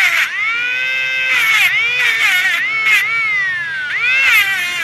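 A mini DC-motor cordless angle grinder whining at high speed, its pitch repeatedly sagging and climbing as a small steel tool tip is pressed against the spinning disc and eased off. A scratchy hiss of grinding comes in at the moments of contact.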